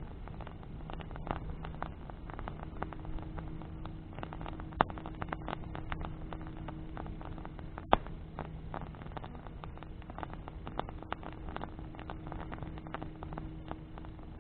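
Wood bonfire crackling with a dense, irregular run of small snaps, and two sharp, louder pops about 5 and 8 seconds in.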